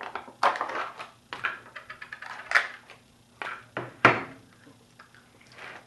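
Spoon and large plastic sour cream tub being handled: a string of short clicks, scrapes and knocks, the sharpest about four seconds in.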